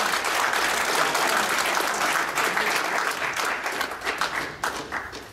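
Audience applauding, dense at first, then thinning to a few scattered claps and stopping near the end.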